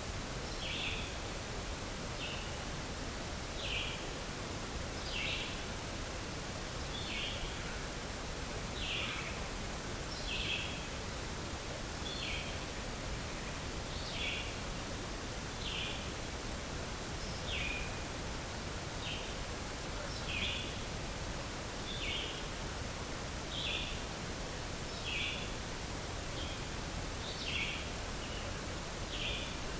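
A small animal's short, high call repeated about every one and a half seconds, some notes dropping in pitch, over a steady background hiss.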